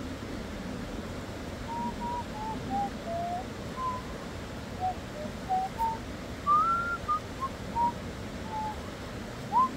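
A string of short, clear whistled notes that hop between higher and lower pitches, a few sliding up or down, beginning about two seconds in.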